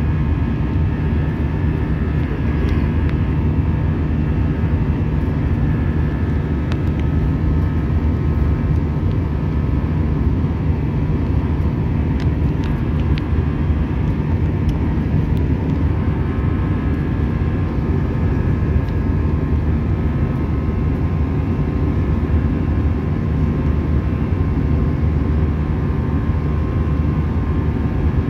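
Steady cabin noise inside an Airbus A320 in flight: a deep, even rumble of engines and rushing air with a faint steady whine over it.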